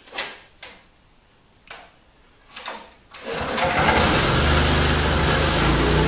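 Small engine of a Bluebird lawn aerator being started: a few short sharp noises, then about three seconds in it catches and runs steadily and loudly.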